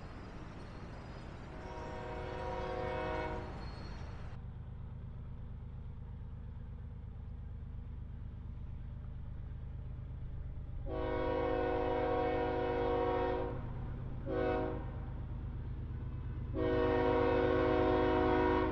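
Diesel locomotive horn sounding the grade-crossing signal, long, long, short, long, over the steady low rumble of the passing train. The horn's several notes sound together as one chord.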